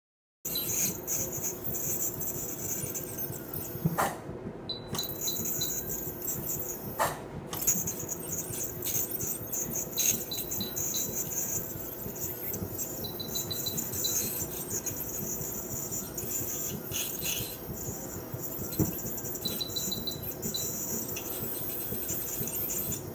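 Dental scaler running against a cat's teeth, its water spray giving a steady high hiss, broken a few times by short high chirping trills.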